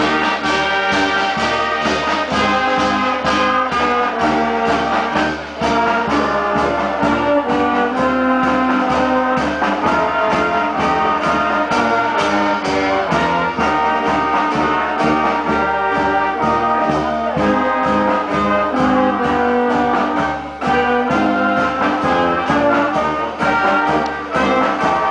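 Wind band playing a tune outdoors: trumpets, saxophones and flute over a tuba bass line, with a steady bass-drum beat. The playing briefly thins twice, about five seconds in and again near twenty seconds.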